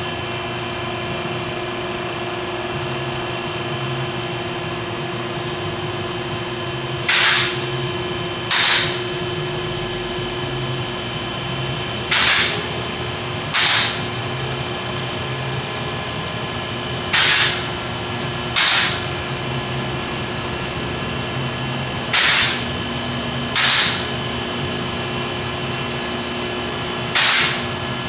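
An alignment lift's electric-hydraulic power unit runs with a steady hum as it raises an SUV. Pairs of short air hisses, about a second and a half apart, come roughly every five seconds and are the loudest sounds.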